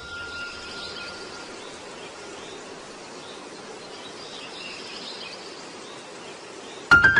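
Steady outdoor ambient hiss with faint high chirps, possibly birds, under the fading ring of a chime in the first second or so. Just before the end, a sudden loud chime-like hit marks the start of music.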